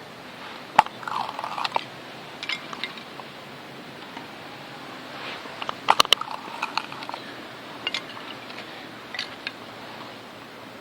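Knife blade shaving and cutting into a piece of soft firewood. Scattered sharp clicks and short scrapes, with a quick cluster of cracks about six seconds in.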